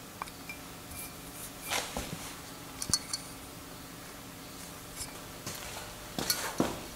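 Cast aluminium carb scoops and small metal parts being handled at the bench, with a screwdriver: a few separate light metallic clinks and knocks, some with a short ring, loudest about three seconds in and near the end.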